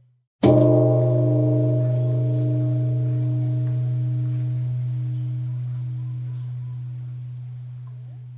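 Large Buddhist temple bell struck once about half a second in, its deep hum and higher overtones ringing on and slowly fading.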